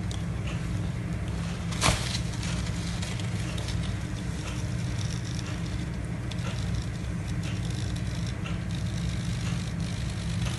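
Steady low mechanical hum with a single sharp click about two seconds in.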